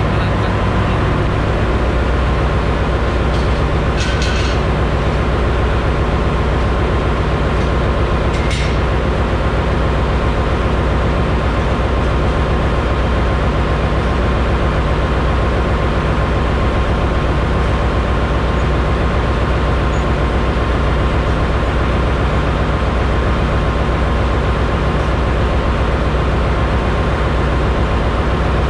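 Ship's engine-room machinery running: a loud, steady low drone with a constant hum. A couple of faint clicks sound about four and eight seconds in.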